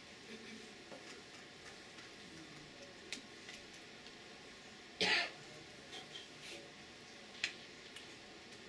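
Quiet room with a faint steady hum and a few light clicks, broken about five seconds in by one short cough.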